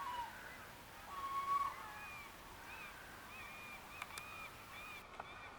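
Faint calls from a Canada goose family: a single held note about a second in, then a run of short high peeps repeating for a few seconds.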